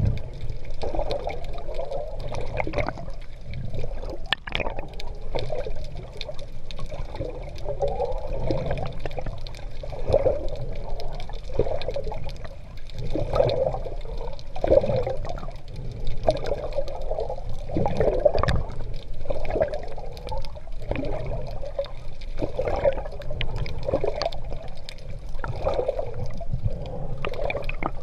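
Sea water splashing and sloshing around a GoPro carried on an open-sea swim, in uneven surges every second or two.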